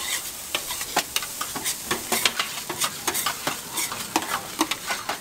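Egg fried rice sizzling on a flat iron griddle, with quick, irregular clacks and scrapes as two metal spatulas chop and turn it against the hot plate, several strokes a second.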